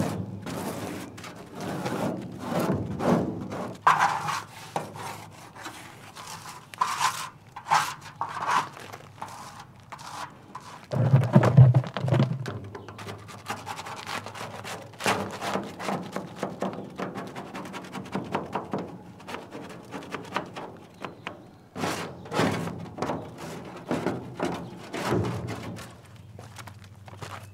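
Hand paint scraper scraping softened paint and stripper off a truck hood, irregular scrapes and knocks, the loudest a heavy thunk about eleven seconds in.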